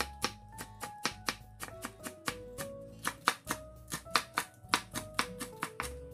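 Chef's knife slicing green onion on a wooden cutting board: quick, sharp knife strikes against the board, about four or five a second, slightly uneven. Background music plays underneath.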